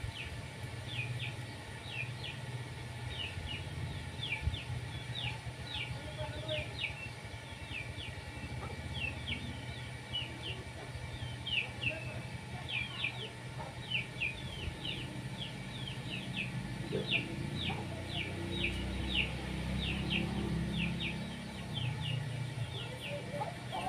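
Chickens peeping, a quick run of short high falling peeps that goes on throughout, over a low steady hum.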